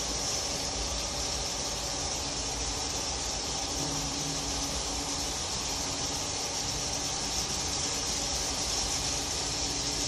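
Misting fogger hissing steadily, a high, even hiss that does not change.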